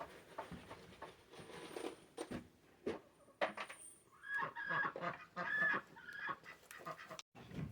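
Domestic poultry calling: a run of short, repeated calls that starts about halfway through and stops suddenly near the end, with a few faint knocks before it.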